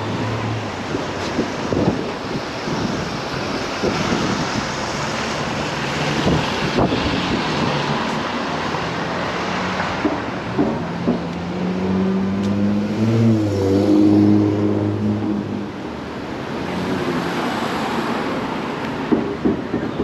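Outdoor street ambience: a steady wash of traffic noise, with a motor vehicle's engine hum rising and passing in the middle, loudest about two-thirds of the way through.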